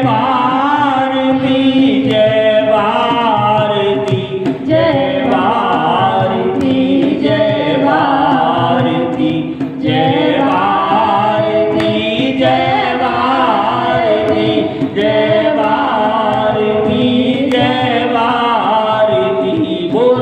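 Several voices singing a Hindi patriotic bhajan together, in sung phrases of about five seconds each with short breaths between them.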